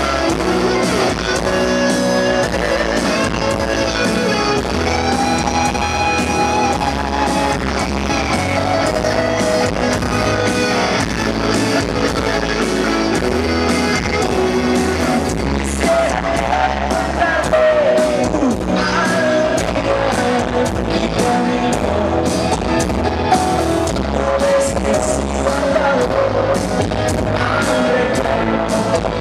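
Rock band playing live: an electric guitar lead over bass and drums, with singing.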